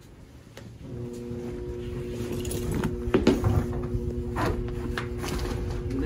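Rheem 90% gas furnace's blower motor starting up with a steady electrical hum that sets in about a second in and keeps going; the motor is defective, drawing about 10 amps. A plastic wheeled trash bin knocks and rolls as it is pulled aside.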